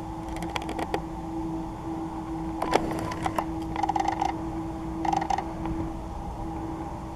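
Creaking and clicking handling noise from the camera as it pans, in several short bursts, over a steady low hum.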